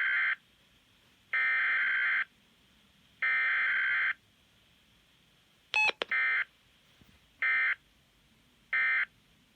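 Weather radio SAME (Specific Area Message Encoding) digital data bursts: three long buzzy bursts, a brief click, then three short bursts, the end-of-message code that closes an alert.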